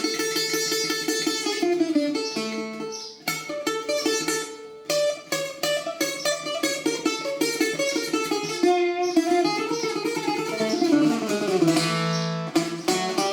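Greek bouzouki being played solo: a melody of quick picked notes running on without a break, with a long low note held near the end.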